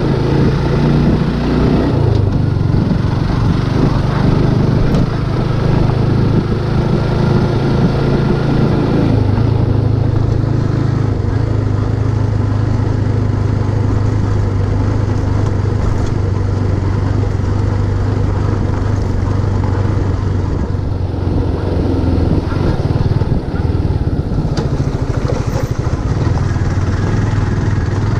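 Motorcycle engine running under way, its note rising and falling with the throttle for the first several seconds, then holding steadier before shifting again near the end.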